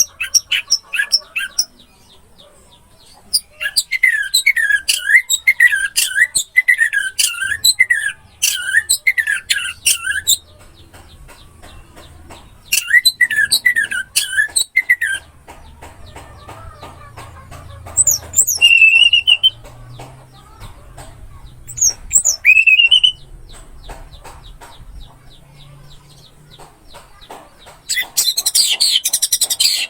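Orange-headed thrush (anis merah) singing: phrases of rapidly repeated, sliding whistled notes, each phrase lasting from one to several seconds, broken by short pauses. A higher, scratchier burst of song comes near the end.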